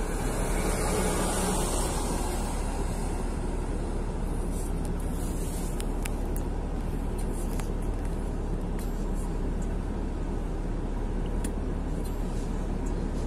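Steady road noise inside a moving car on a wet road, a low rumble with tyre hiss, swelling over the first two seconds as a military truck passes close by. A few faint clicks later on.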